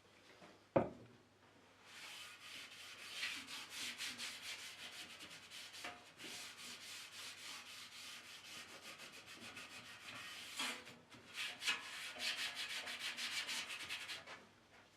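Quick back-and-forth hand rubbing or sanding on wood, with a short pause partway through. A single sharp knock comes just before it starts and is the loudest sound.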